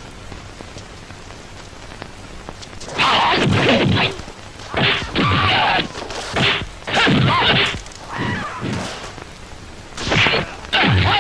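Dubbed-in classic martial-arts fight sound effects, a run of about eight whooshing, smacking blow sounds. They start about three seconds in, after a quieter opening.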